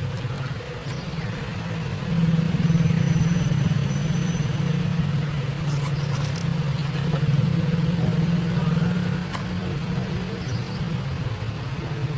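Motor vehicle engine running steadily, a low hum that grows louder about two seconds in and eases back after several seconds.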